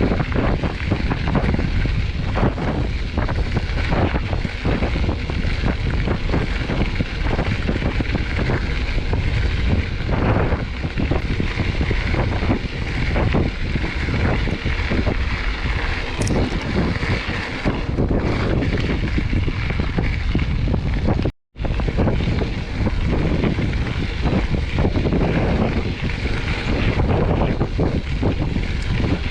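Mountain bike rolling over a dirt trail: tyres grinding on the ground, frequent knocks and rattles from the bike, and heavy wind buffeting the microphone. The sound cuts out completely for a moment about 21 seconds in.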